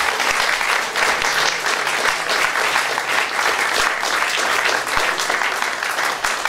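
Audience applauding: dense, steady clapping from a full room.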